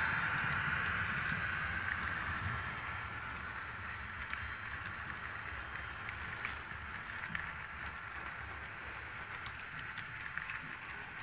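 Model train coaches rolling along the track close by: a steady running hum that slowly fades, with light clicks from the wheels over the rail joints in the second half.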